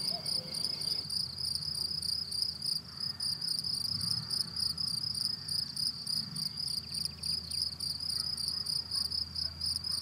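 Meadow insects stridulating: a steady, high cricket-like chirping that pulses evenly several times a second without a break.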